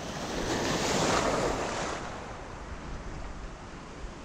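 Shallow ocean surf washing in around a wader: a wave rushes in, loudest about a second in, then settles to a steady wash.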